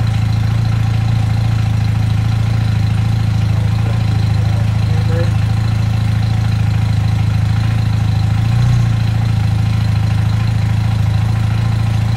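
1978 Honda CB400 Hawk TII's air-cooled parallel-twin engine idling steadily, still warm-up running after a cold start, with a brief slight swell about nine seconds in.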